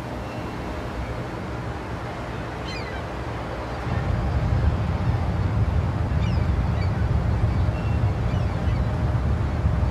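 Low, steady rumbling sea-and-wind ambience from a film soundtrack, which swells louder and deeper about four seconds in. A few faint, short falling cries sound high above it.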